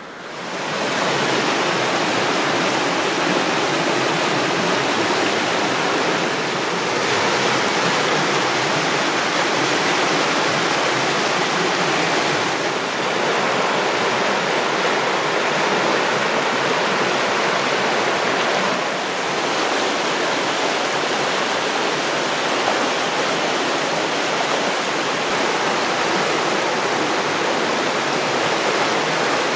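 Steady rush of a creek in flood, swollen and fast-moving after days of hard rain, churning past the bridge piers and flooded saplings.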